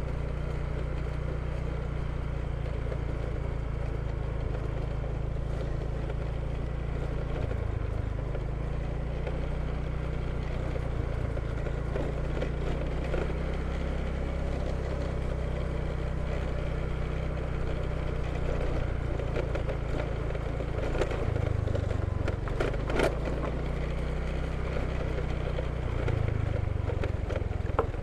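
High-mileage rented motor scooter being ridden, its small engine running steadily over a continuous rush of wind and road noise. The engine note changes a few times, about 7 s in, around 21 s and again near the end.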